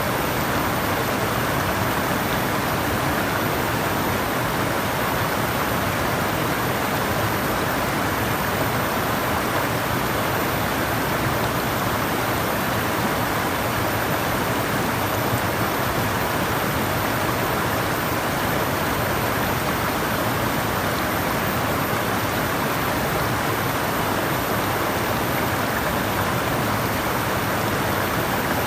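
Running water: a steady, even rush of flowing water with no change throughout.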